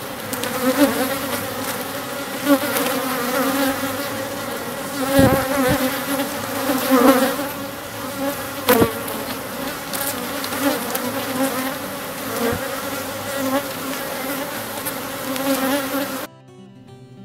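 Honeybee colony in an opened Langstroth hive buzzing fairly loudly, a steady, dense hum stirred up as the frames are worked. A few sharp knocks of the metal hive tool against the wooden frames stand out. The sound cuts off abruptly near the end.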